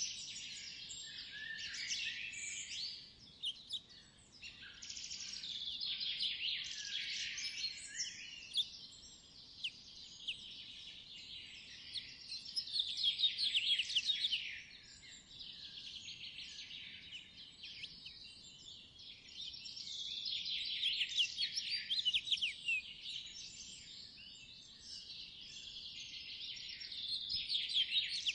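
Songbirds chirping and singing, with bouts of rapid high notes every several seconds.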